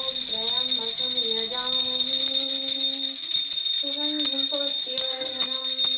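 Brass puja hand bell rung without pause during aarti, a steady high ringing, over a voice singing a slow devotional melody that steps between long held notes.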